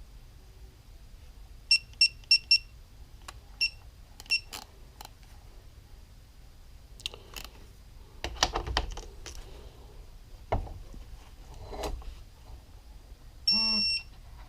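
Metal wrench clicks with a short ringing tone as the 12 mm shift-star bolt on a Yamaha YZ250 two-stroke engine is tightened and torqued down: four quick clicks, a few more a second or two later, then knocks of tool and parts being handled.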